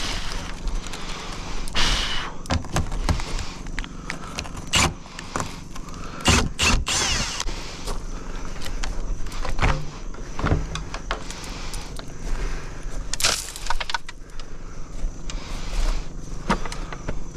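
Scattered clicks, knocks and rattling scrapes of parts and tools being handled, over a steady low rumble.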